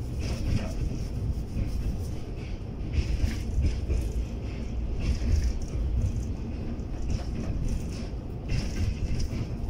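Passenger train running across a river bridge: a steady low rumble of wheels on the track with faint clicks, and wind buffeting the microphone.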